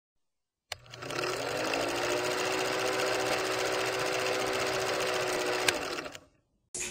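Old film projector sound effect: a fast, even mechanical clatter over a steady whirring hum. It starts with a click, has one sharp tick near the end, then fades out.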